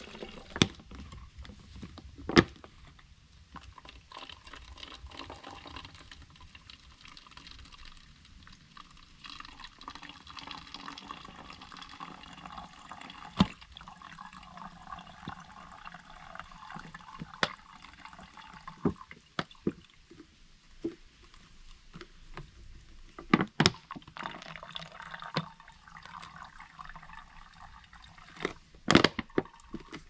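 Water trickling as it is squeezed through a brand-new Sawyer Mini water filter, with scattered sharp clicks from handling it.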